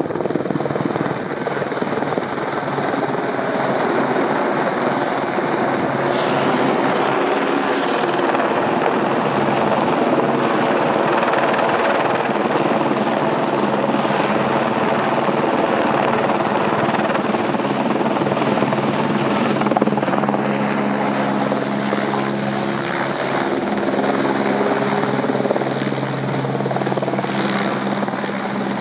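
Airbus helicopter in flight, its turbine and rotor running loud and steady, with a continuous whine over the rotor noise.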